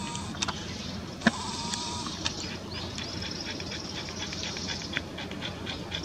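White-cheeked starlings calling from a flock on overhead wires: scattered short, sharp chirps and harsh notes, the sharpest about a second in. A steady high buzzing runs behind them.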